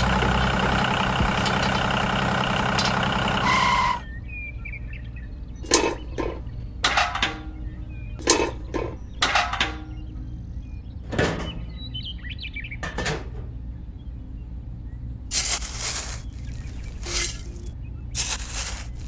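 Background music for about the first four seconds. It cuts off and gives way to a string of short scrapes and hisses as a tiny metal shovel scoops and tips dry sand and cement from small tin buckets, with faint bird chirps behind.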